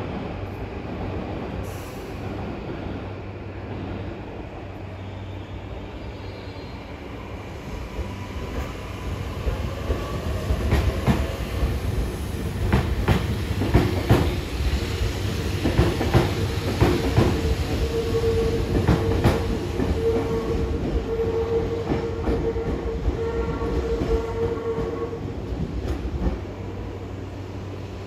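Tokyu 7000 series electric train pulling out: a motor whine rises in pitch as it gathers speed, and its wheels clack over rail joints. Then a steady high squeal from the wheels lasts several seconds as it takes a curve, and it fades near the end.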